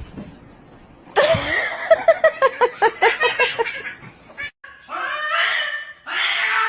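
A pet cat's voice mixed with a person laughing, including a quick run of pitched pulses about five a second in the middle.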